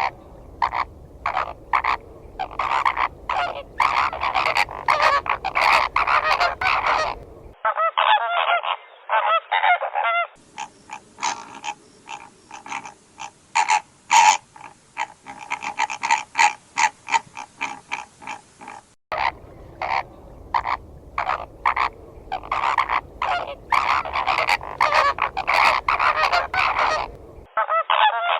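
A flock of flamingos honking: many short, rapid, overlapping goose-like calls. The sound is made of several recordings spliced together, so the tone and background change abruptly a few times.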